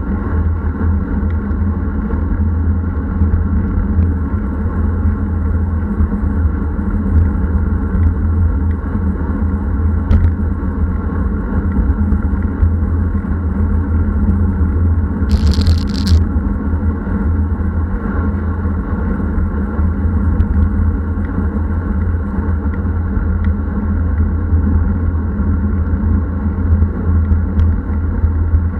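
Strong wind buffeting the microphone of a bike-mounted action camera on a road bike at speed: a steady, loud low rumble over tyre and road noise. A brief hiss about halfway through.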